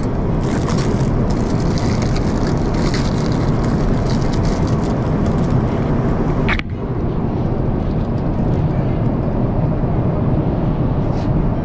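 Steady roar of an Airbus A350 airliner's cabin in flight, with faint small clicks and rustles over it. A little past halfway these drop away suddenly and the roar carries on.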